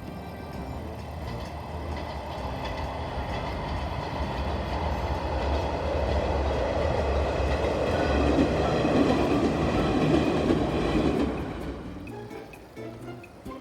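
Daiyūzan Line electric train passing, its wheel and running noise building steadily to a peak about two-thirds of the way through, then dropping away quickly near the end.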